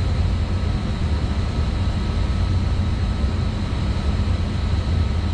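Steady low rumble of running boiler and rooftop mechanical equipment, with a thin high whine held over it.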